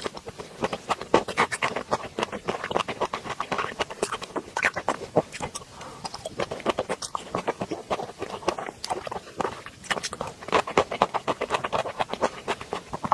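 Close-miked chewing and mouth sounds of someone eating raw shrimp: a dense, irregular run of many small clicks each second.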